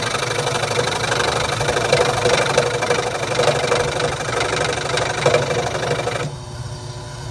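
Rikon 16-inch variable-speed scroll saw running, its reciprocating blade cutting through a piece of wood with a fast, even rattle. About six seconds in the cutting noise drops away and the saw keeps running.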